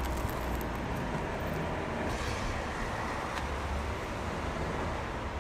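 Steady road noise of a car, a low rumble with an even hiss and no distinct events.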